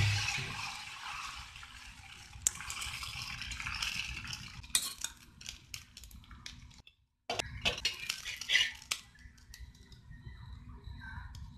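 Dosa batter hissing on a hot tawa, fading over the first second or two as a ladle spreads it. Then scattered clinks and knocks of cookware: the ladle against the pan, and a glass lid set on the pan.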